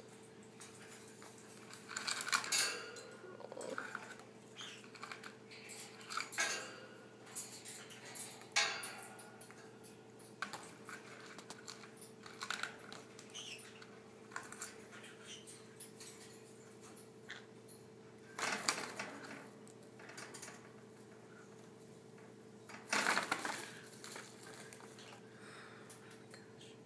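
A parrot in a plastic post-surgery cone collar clambering clumsily about a wire cage: irregular clicks, taps and rattles of collar, beak and claws against the wire bars and perch, with several louder clattering bursts.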